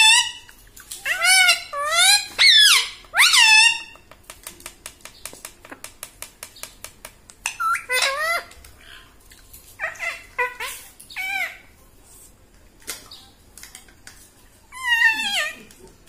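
Rose-ringed parakeet giving a string of high, squeaky calls that slide up and down in pitch. Between the calls, from about 4 to 7 seconds in, comes a fast run of clicks.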